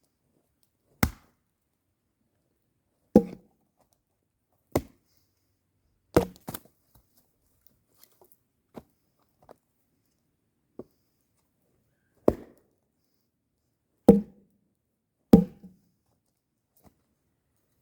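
Firewood being chopped with a blade: about eight sharp single blows a second or two apart, with a pause of several seconds in the middle broken only by a few faint ticks.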